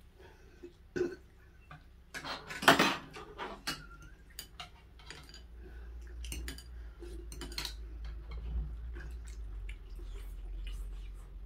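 Cutlery and dishes clinking and clattering in a run of sharp knocks, densest and loudest about two to three seconds in. A low rumble sits underneath in the second half.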